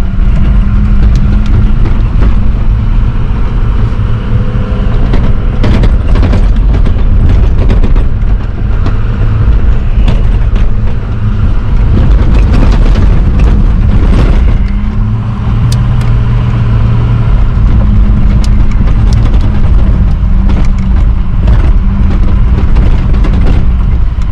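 A large SUV driving over a rough sand track, heard from inside the cabin: a steady engine drone over loud low rumble, with scattered knocks and rattles as it goes over bumps.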